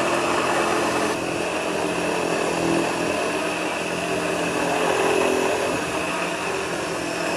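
A 1930s Hoover 725 upright vacuum cleaner running steadily as it vacuums the floor. The motor makes a steady rushing noise with a high whine on top, dipping a little in level about a second in.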